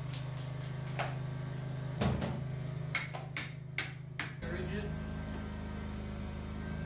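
An engine running steadily, with a string of sharp knocks and clanks between about one and four seconds in; the engine note shifts around two seconds and again just after four seconds.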